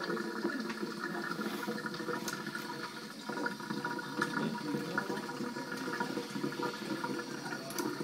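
Kitchen tap running steadily into a frying pan of water in a stainless steel sink, with splashing as an Indian Ringneck parakeet flaps its wings in the water.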